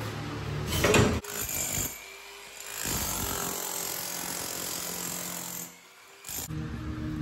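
Electric rotary hammer with a chisel bit chipping out old ceramic shower floor tile. It runs steadily, stops briefly, then starts again near the end, with a sharp knock about a second in.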